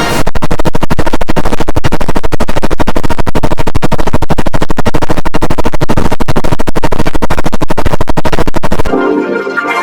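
A cartoon character's burp sound effect (Bubble Bass) distorted through audio effects into a loud, harsh stutter of about a dozen sharp pulses a second. It cuts off about nine seconds in, and a pitched, organ-like chorded version begins.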